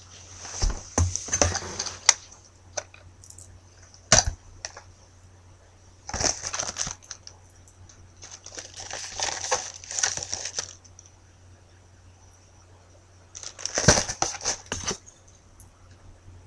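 Plastic bottles and a tube handled close to a webcam microphone: rubbing, rustling and knocking in several short bursts, with sharp clicks, over a low steady hum.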